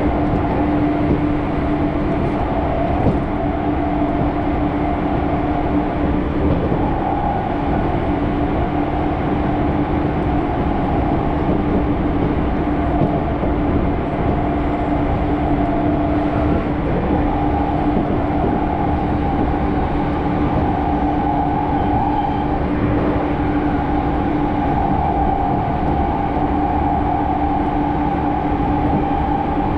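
Running noise heard inside a Ueno-Tokyo Line electric commuter train car. A steady rumble carries a constant low hum and a higher tone that wavers slightly.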